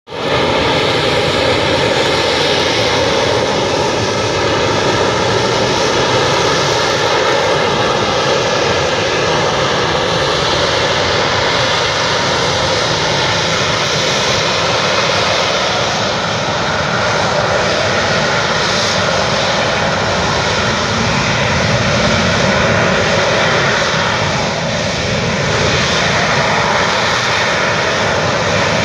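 Fighter jet hovering, its jet engine running at the high thrust needed to hold it up: a loud, steady noise with several high whining tones over it, dipping slightly in level near the end.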